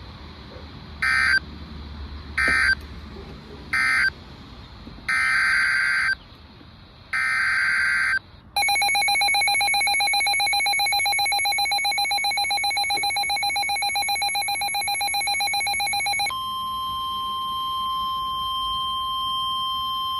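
NOAA Weather Radio EAS alert signals. First come SAME digital data bursts as screechy two-tone warbles: three short ones (the end-of-message code), then two longer ones (the next alert's header). Then a rapidly pulsing electronic alert tone runs for about eight seconds, and the steady 1050 Hz weather radio warning tone follows for about five seconds.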